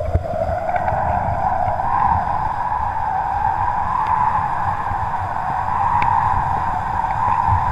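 Wind rushing over a GoPro clamped to a taut kite line, with a steady whine from the line vibrating in the wind. The whine rises a little in pitch over the first two seconds and then holds.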